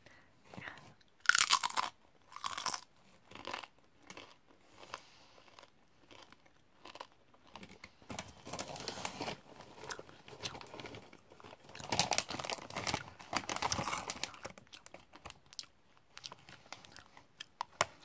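Close-up crunching of a tortilla chip with popcorn in it being eaten. Two sharp crisp bites come about a second in, followed later by two longer bouts of crunchy chewing.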